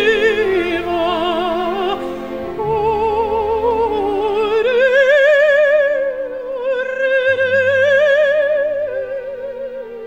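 Operatic soprano singing long held notes with a wide vibrato over a low sustained accompaniment. The voice climbs to a higher note about halfway through and grows softer near the end.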